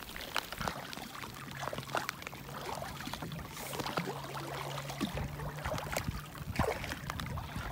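Rain pattering on calm sea water, a steady hiss of many small drops ticking on the surface. A faint low steady hum runs underneath.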